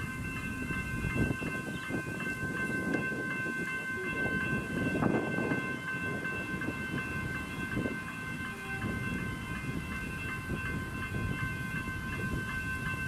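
General Signals electronic level-crossing bells ringing a steady, rapidly repeating tone while the crossing is activated, the warning that a train is approaching. An uneven low rumble runs beneath the bells.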